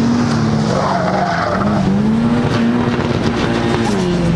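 Turbocharged 1.8-litre Mazda BP four-cylinder of an Exocet running hard, its note rising and falling with the throttle and dropping near the end, with tyres squealing as the car slides.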